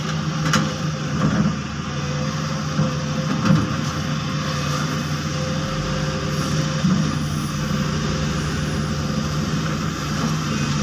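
Heavy diesel engines of a hydraulic excavator and a wheel loader running steadily, with a couple of brief knocks.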